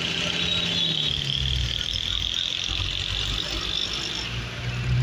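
Mazda T4100 mini truck's engine running as the truck drives along. Its note drops lower about a second in and picks up again near the end, with a steady high-pitched whine over it that fades out shortly before the end.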